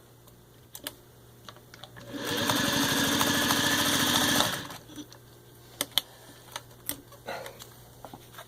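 Singer 301A sewing machine running at speed for about two and a half seconds, buzzing as it stitches through three layers of thin leather. It starts about two seconds in and stops abruptly. Scattered light clicks come before and after the run.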